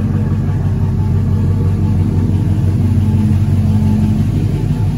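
Rebuilt 6.0-litre LQ9 V8, fitted with ported 5.3 (862) heads and an LS6 cam, idling steadily through its new exhaust on its first run after the rebuild, running nicely.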